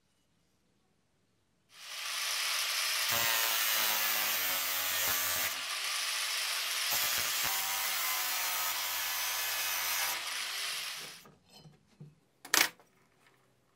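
A power tool working metal runs for about nine seconds: it starts suddenly, holds a steady hissing grind and dies away. A single sharp click follows near the end.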